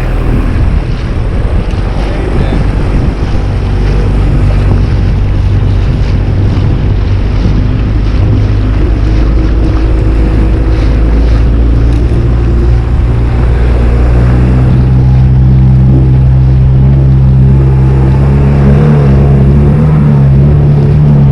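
Outboard motor pushing an inflatable boat along, with wind and water noise. About two-thirds of the way through, the engine speeds up and its note rises to a higher, steady pitch.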